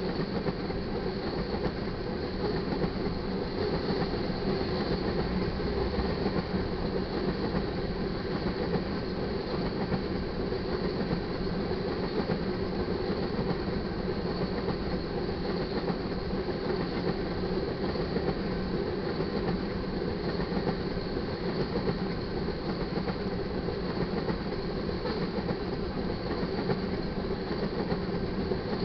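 Tank cars of a loaded crude oil freight train rolling steadily past: the continuous noise of steel wheels running on the rails.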